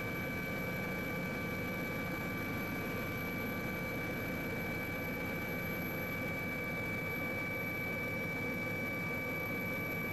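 Steady drone of an aircraft engine: an even hiss with a few high, steady whining tones over it, and no change throughout.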